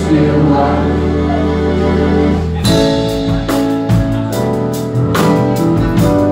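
Live band music. Held keyboard and guitar chords, then about two and a half seconds in the drum kit comes in with a steady beat of cymbal strokes, about four or five a second, as the chords change.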